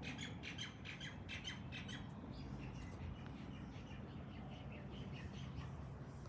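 Birds chattering and squawking in quick, rapid calls, densest in the first couple of seconds and then thinning out, over a steady low background rumble.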